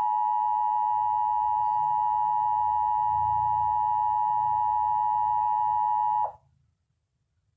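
Emergency Alert System attention signal: a steady two-tone alarm of 853 and 960 Hz sounding together, cutting off suddenly about six seconds in.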